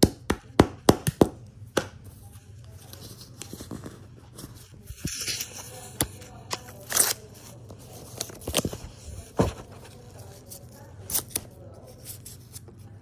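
A quick run of about six sharp knocks in the first second and a half, then scattered taps and clicks of things being handled, with a short rustling tear about five seconds in and a few single louder knocks later on.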